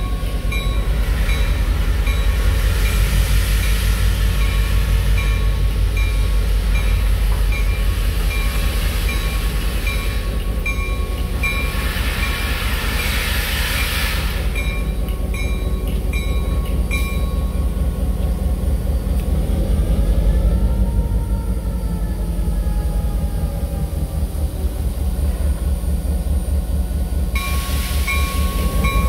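EMD SW8 diesel switcher's eight-cylinder 567 two-stroke engine running with a steady low throb as it pulls a 4-8-4 steam locomotive, while steam vents from the steam engine in a hiss that swells loudest near the middle.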